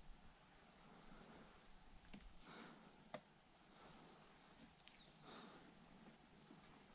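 Near silence: faint outdoor background with a couple of light clicks, about two and three seconds in.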